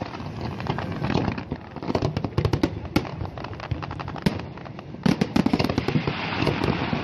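Fireworks display: a fast, irregular string of bangs and crackling bursts. The bangs thin out briefly about four and a half seconds in, then a dense volley follows.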